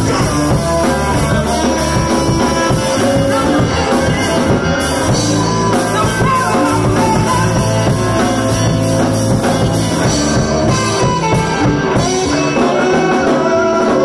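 Live rock band playing improvised music, with electric guitar, drum kit and saxophone, and a woman singing.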